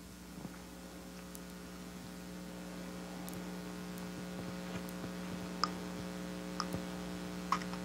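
Steady electrical mains hum: a buzzy stack of steady tones with faint hiss, growing slightly louder, with a few faint clicks in the second half.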